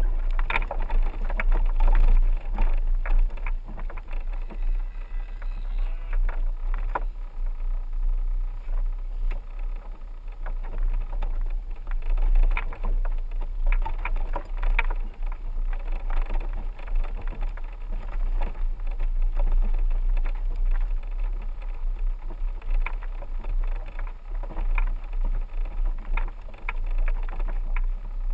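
A 4x4 driving slowly over a rough dirt road: a steady low rumble with irregular knocks and rattles as it bumps along.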